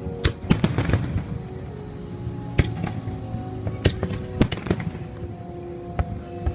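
Aerial fireworks bursting: a quick cluster of sharp bangs in the first second, then single loud booms about every second, with music playing underneath.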